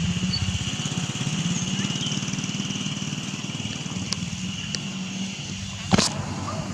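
A small engine running steadily at idle, with a fast, even pulsing. A single sharp click about six seconds in.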